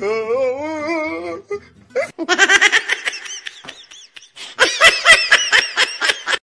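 A drawn-out, wavering vocal sound, then two bouts of rapid, high-pitched laughter, one about two seconds in and one near the end.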